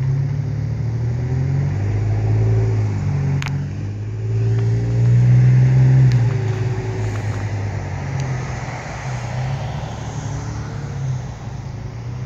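A motor vehicle engine running continuously, its pitch and loudness rising and falling a little, loudest about halfway through.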